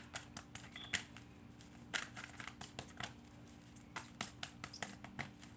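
Tarot cards being shuffled and handled: an irregular run of light card clicks and flicks, with a few sharper snaps about a second apart.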